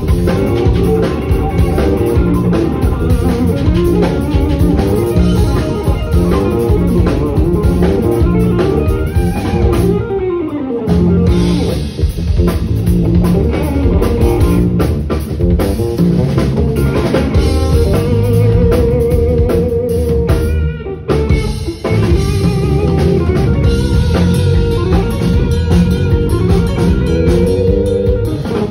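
Live funk-jazz band: electric guitar playing lead lines over drum kit and bass. There is a falling slide about ten seconds in and a short break in the groove near twenty-one seconds.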